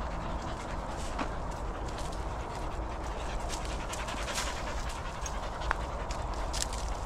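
A dog panting close by, with footsteps crunching on a dirt path.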